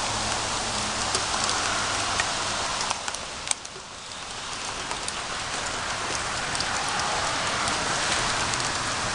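Heavy rain pouring down and pattering on the ground, a steady hiss full of fine drop ticks. A sharp click comes about three and a half seconds in, after which the rain sounds briefly quieter before building back up.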